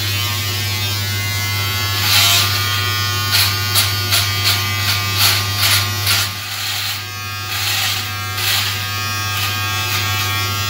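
Electric shaver running with a steady buzzing hum, crackling irregularly as it cuts through a thick full beard from about two seconds in.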